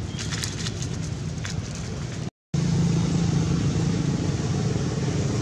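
Steady low motor hum, like an idling engine. A few light crackles in the first second and a half. The sound cuts out briefly about two seconds in, then returns slightly louder.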